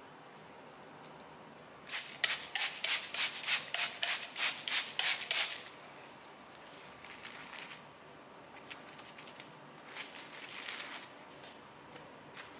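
Plastic cling wrap pulled off its roll in a quick run of about a dozen loud strokes, starting about two seconds in and lasting some three and a half seconds. Softer crinkling follows as the wrap is laid and smoothed over a tray.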